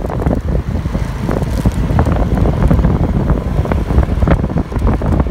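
Heavy wind buffeting the microphone on a moving motorbike, over the rumble of the bike and the road.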